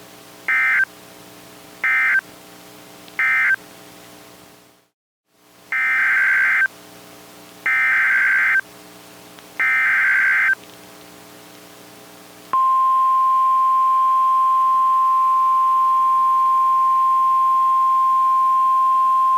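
Emergency Alert System SAME data tones from a weather-radio broadcast. Three short bursts of screechy digital data come first, the end-of-message code, and after a brief dropout three longer header bursts follow. About two-thirds of the way in, a steady single-pitch 1050 Hz NOAA Weather Radio alert tone starts and holds, over a faint low hum.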